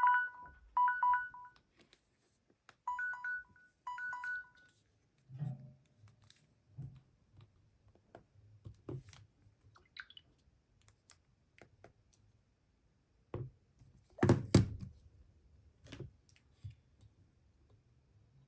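Samsung phone alarm tone: short two-pitch electronic beeps, sounding in two quick pairs over the first few seconds, then stopping. After that come scattered clicks and knocks of the phone being handled, the loudest about fourteen seconds in.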